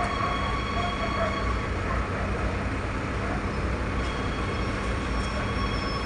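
Steady rumble of a train running, heard from inside the carriage, with a thin high wheel squeal coming in over the second half.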